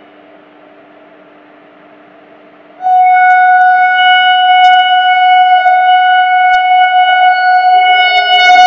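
Electric locomotive horn sounding one long, loud, steady blast that starts about three seconds in as the express approaches. Before it there is only a faint hiss, and the clatter of the oncoming train starts just before the end.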